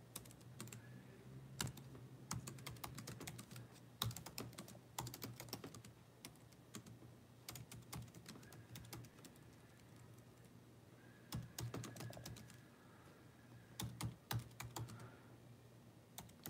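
Typing on a computer keyboard: irregular runs of key clicks with short pauses between, over a faint steady low hum.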